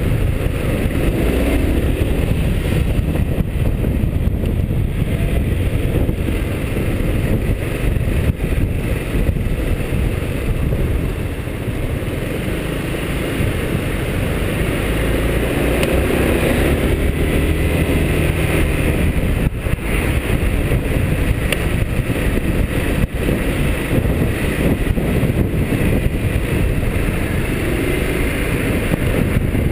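Honda SH300i scooter's single-cylinder engine running on the move, mixed with heavy wind and road noise. The engine pitch rises and falls about halfway through.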